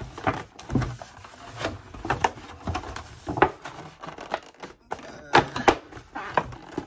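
Cardboard perfume boxes being handled and opened: a run of irregular knocks and taps.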